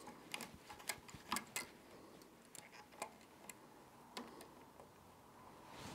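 Faint, irregular small clicks and ticks of a nylon string being threaded through a classical guitar's tuning roller and looped around itself, fingers working at the headstock. Several come close together in the first second and a half, then a few more spread out.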